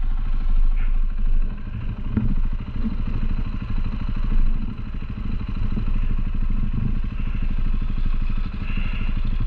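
Off-road motorcycle engine running steadily, its rapid firing pulses continuous, with a few knocks and some rattle over it.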